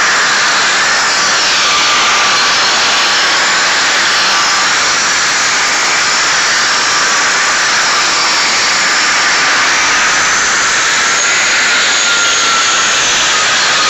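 Power sander grinding a concrete surface, running steadily and loudly with a high whine that wavers slightly in pitch.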